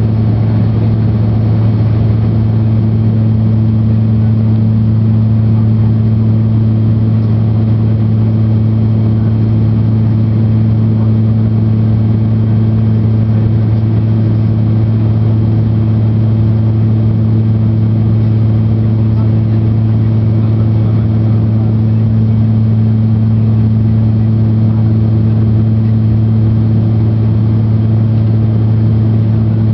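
Cabin noise of a Dornier 328-110 climbing after takeoff: the Pratt & Whitney Canada PW119B turboprops and their propellers give a loud, steady low drone with a strong hum of propeller tone and its overtones, over a rush of airflow. It holds even, without change.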